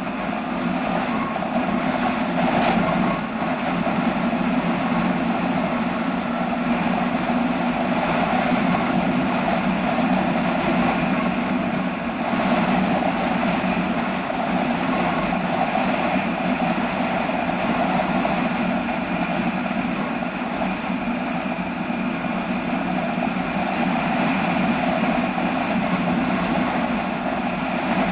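Motorcycle's Ural flat-twin engine with 'bomb' mufflers running steadily under load while riding, its ignition timing just set slightly more advanced.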